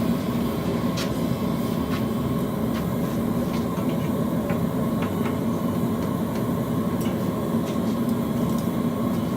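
Forge burner running steadily, with a few faint ticks over it.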